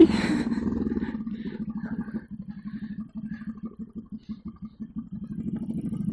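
Motorcycle engine idling or running at low revs, a steady low engine note with even firing pulses.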